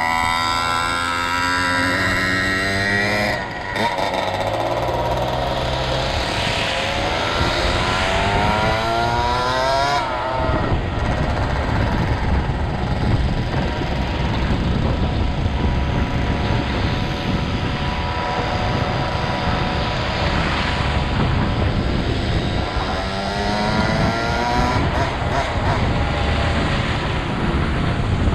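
Kawasaki KX60 two-stroke dirt bike engine revving up and down as it is ridden, its pitch rising and falling repeatedly. From about ten seconds in, a heavy low rumble of wind on the microphone largely covers the engine, which rises through it again near the end.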